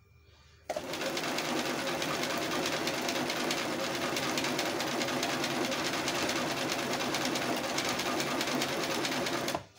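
Singer 974 Professional Discmatic electric sewing machine running at a steady speed, sewing a zigzag stitch set by a cam disc. It starts about a second in and stops just before the end.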